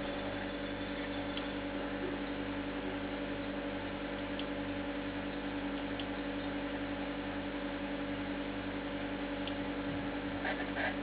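EL wire driver (hexTronik Lumifly glow-driver inverter) humming steadily while it lights two glowing wires, with a faint low pulsing a few times a second underneath and a few light ticks near the end.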